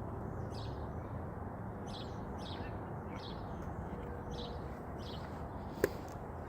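Small birds chirping repeatedly in short downward chirps, about one or two a second, over a steady background noise, with one sharp click about six seconds in.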